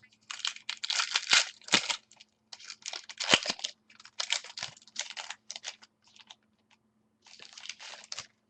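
Irregular crinkling and tearing of trading card pack wrappers as packs are ripped open and the cards handled, in uneven clusters with a few sharp clicks.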